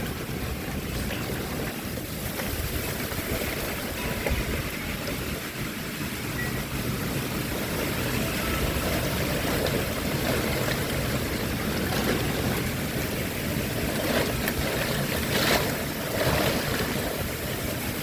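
Storm wind: a steady rushing noise that swells and eases in gusts, with a few stronger surges near the end.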